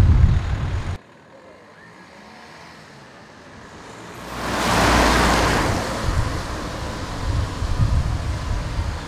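Wind buffeting the microphone, with a car passing about four to six seconds in, its noise swelling up and then fading away.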